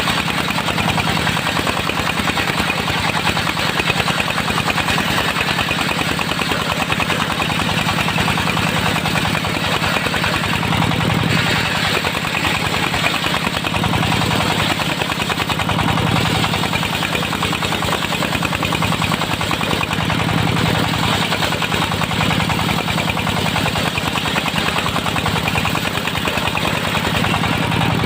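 Engine of a portable circular sawmill running steadily, a fast, even firing beat under a dense mechanical din.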